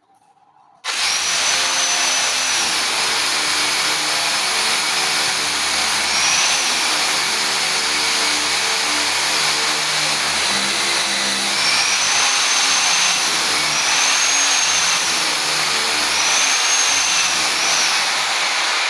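Electric drill running under load as it bores into the wall for wall plugs. It starts about a second in and runs continuously, its motor whine rising and dipping several times as the load changes.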